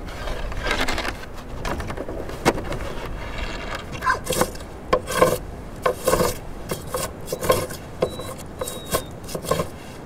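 Hand plane shaving a birch sled plank in a run of rasping strokes, about two a second, growing stronger about four seconds in.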